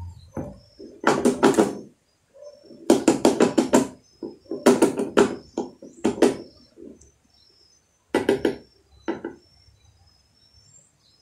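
Several short runs of rapid knocking and rattling from a plastic fuel jug and a metal funnel being handled while two-stroke oil is mixed into the gasoline. Birds chirp faintly in the background.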